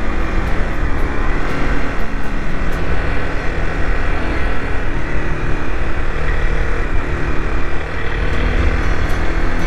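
Honda CBR 250R's single-cylinder engine running steadily while riding, with wind noise on the microphone.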